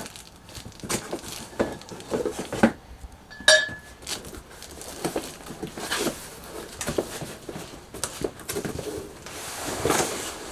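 A large flat cardboard shipping box being handled and the tabletop slid out of it: cardboard scraping and rustling with irregular knocks and taps, and a short ringing clink about three and a half seconds in.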